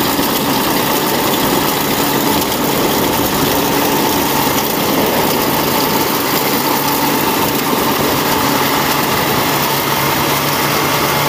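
Kubota DC105X combine harvester running steadily as it harvests rice. Its engine and machinery make a dense, even noise with a constant hum.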